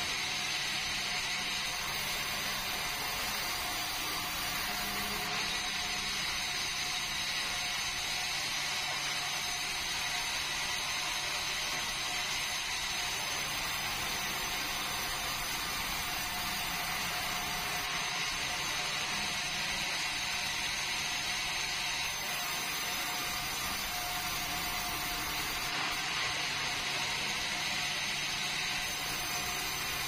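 Sawmill saw running steadily while a squared red meranti log is fed through it, a continuous mechanical sawing noise.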